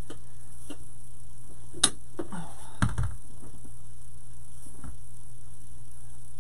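Steady electrical mains hum, with a few light clicks, a sharper click about two seconds in and a low thump about a second later as small greenery picks are handled.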